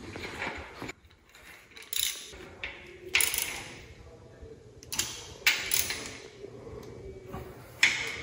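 Hand ratchet clicking in several short spurts as bolts are run in and tightened, fastening the engine mount to the block.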